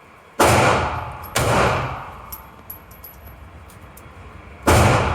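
Three handgun shots: two about a second apart, then a third after a pause of about three seconds, each ringing off in a short echo.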